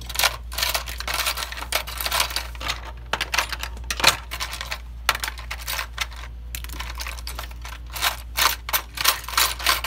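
Rummaging through small hard tools: irregular clicking and clattering, in dense bunches with short pauses, busiest near the end.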